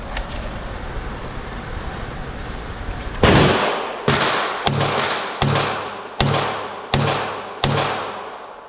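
9mm Sig P320RX compact pistol fired in slow succession in an indoor range: about seven sharp shots starting about three seconds in, spaced under a second apart, each ringing off the range walls.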